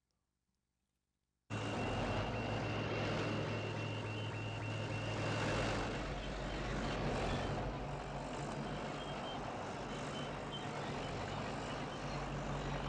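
A bulldozer's engine running steadily in a film soundtrack, starting suddenly after about a second and a half of silence. A high thin tone sounds over it, steady at first and then broken into short beeps later on.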